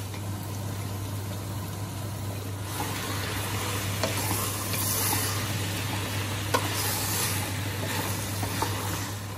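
Onion-tomato masala base sizzling as it fries in a pan on high heat, while a ladle is stirred and tapped against the pots as chickpeas are drained and transferred in, with a few light clinks. A steady low hum runs underneath.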